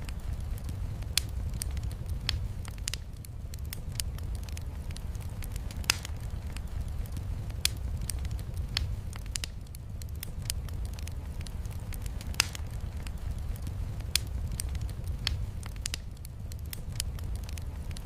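Wood fire crackling in a fireplace, with sharp, irregular pops every second or so over a steady low rush of heavy rain.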